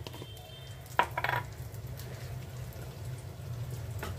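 Cumin seeds sizzling faintly in hot oil in a kadai, with faint scattered crackles over a low steady hum. A utensil knocks and clatters against the pan about a second in.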